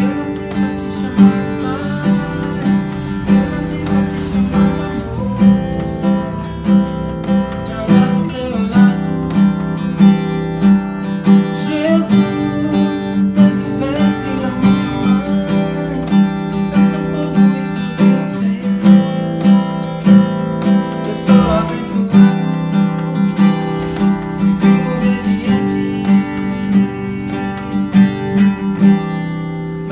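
Acoustic guitar being strummed, sustained chords with an even strumming rhythm of about two accented strokes a second.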